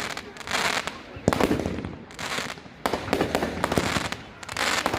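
Fireworks going off: a rapid run of sharp bangs and crackles, over several hissing swells.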